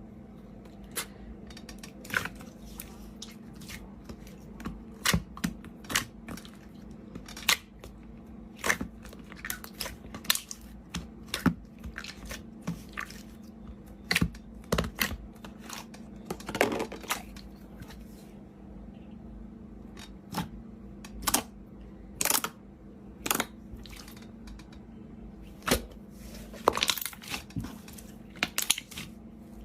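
Slime being squeezed and poked by hand, making irregular sticky clicks and pops, some in quick clusters, over a faint steady hum.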